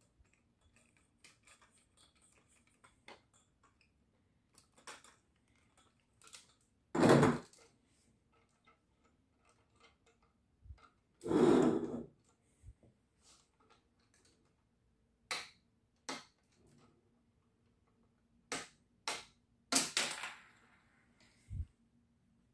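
Hard plastic clicks, knocks and rattles of a large Lego model being handled and moved on a table: two longer rattles, then a run of sharp clicks and a dull thump near the end.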